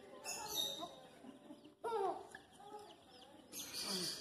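Baby chicks peeping, many thin high cheeps one after another. About two seconds in comes a short loud cry that falls in pitch, and near the end a burst of rustling noise.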